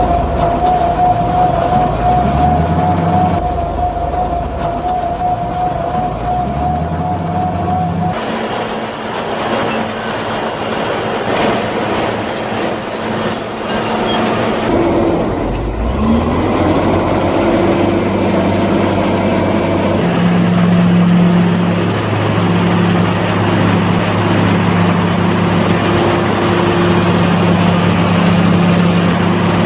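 Heavy diesel farm machinery unloading chopped maize silage: tractor engines rev up twice over a wavering whine, then the forage wagon's unloading gear squeals. From about 16 seconds in, a Case wheel loader's diesel engine runs steadily.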